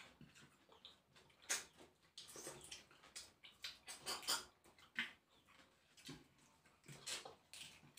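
Mouth eating sounds: irregular short, faint sucks and slurps as snail meat is sucked out of the shells.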